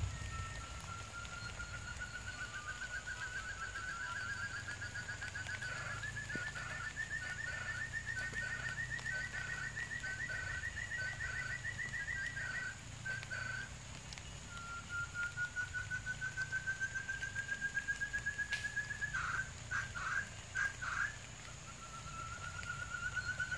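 Quail calling: long trills of rapid notes that rise slowly in pitch, each lasting several seconds, with a second, choppier series of short notes beneath the first trill. After a short gap a second trill comes, then a few separate notes, and another trill begins near the end.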